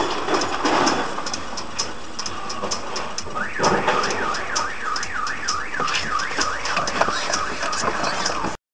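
A car alarm warbles with a fast up-and-down pitch sweep, starting a little over three seconds in. It is most likely the parked pickup's alarm, set off as a horse-drawn cart runs into it. A steady fast ticking, about three ticks a second, runs underneath.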